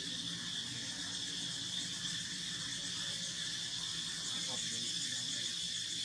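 Insects calling in a steady, unbroken high-pitched chorus.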